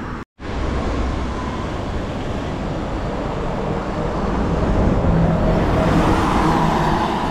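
Road traffic going by: a steady rumble and hiss that swells a little about five seconds in. A brief dropout to silence comes just after the start.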